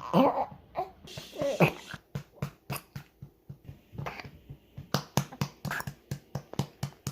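Baby making short vocal sounds, cooing and whimpering, while being patted on the back to bring up a burp: steady light pats about three or four a second.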